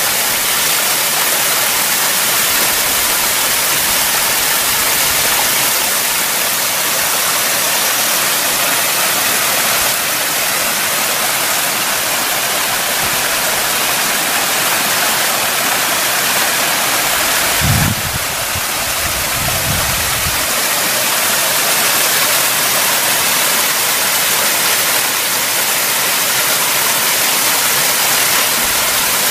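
Mountain stream rushing over rocks, a loud steady hiss of running water. A brief low rumble comes about two-thirds of the way in.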